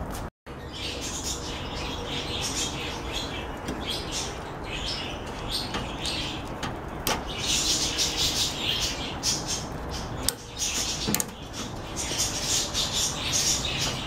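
Small birds chirping and twittering in quick clusters, over a few light plastic clicks as a microswitch is fitted into a microwave door-interlock bracket.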